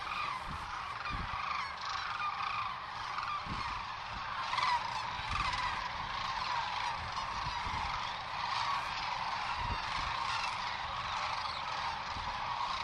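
A flock of geese honking, many calls overlapping without a break.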